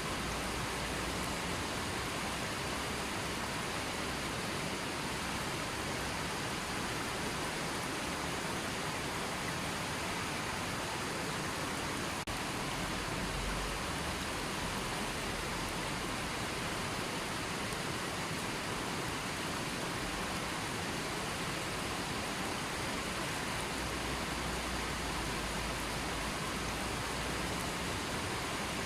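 River water flowing in a steady, even rush with no change in level.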